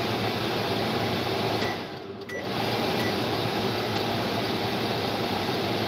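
A small motor running steadily with a low hum, cutting out briefly about two seconds in and starting again.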